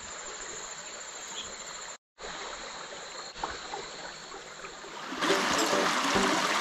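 Crickets and other night insects trilling steadily over the low rush of a stream. The sound drops out for an instant about two seconds in, and about five seconds in it gives way to louder rushing water with music.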